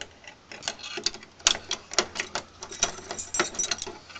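A 3-lever try-out key clicking and rattling against the levers inside a three-lever lock as it is jiggled and turned. The clicks come in an irregular run, several a second.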